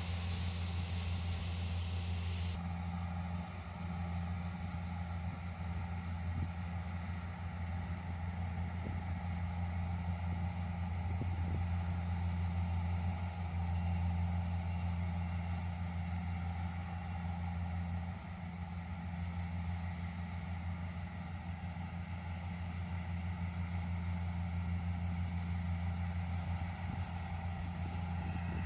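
Yanmar YH470 rice combine harvester's diesel engine running steadily with a deep, even hum. A higher hiss over it stops suddenly about two and a half seconds in.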